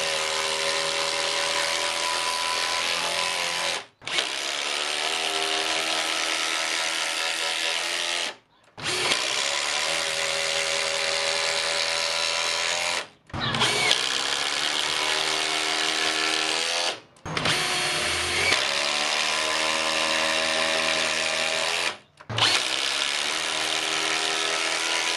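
Panasonic EZ1PD1 cordless impact driver hammering a screw into timber, in six runs of about four seconds each with brief stops between them.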